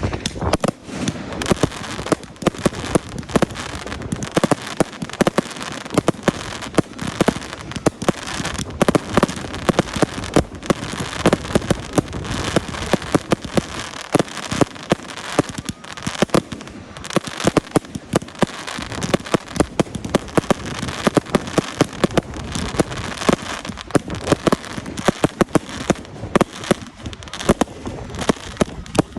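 Fireworks display in a dense, continuous barrage: many sharp bangs and cracks each second over a steady crackle.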